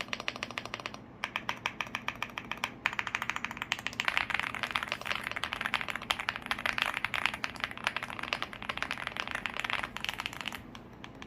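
Typing on a Leobog Hi75 aluminium-case mechanical keyboard with stock Greywood V3 linear switches, as a rapid run of key clicks. The typing breaks off briefly twice early on, gets faster and louder about four seconds in, and stops near the end.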